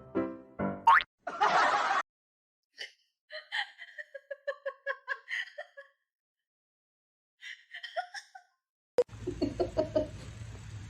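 Giggling laughter in short, quickly repeated bursts, about five a second, in two runs with a pause between. A sharp click about nine seconds in gives way to a noisier stretch.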